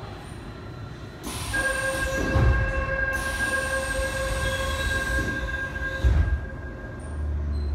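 Door-closing sequence on a resistor-control Seoul Subway Line 1 train car. A steady high buzzer tone sounds for about three and a half seconds. Then comes a hiss as the sliding doors close, a thump as they shut, and a low hum starting near the end.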